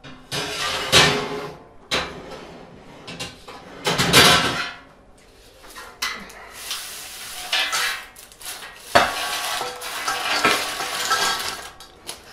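Baked plantain chips tipped and scraped off a metal baking tray into a stainless steel bowl: continuous clattering and scraping, with a few loud clanks.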